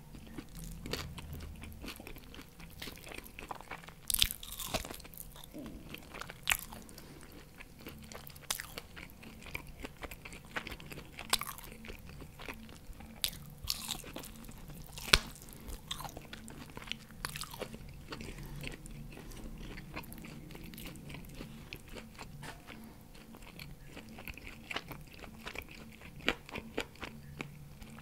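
Close-miked chewing and biting of barbecue pork rib meat, with irregular sharp wet mouth clicks and crunches; the loudest come about four and fifteen seconds in.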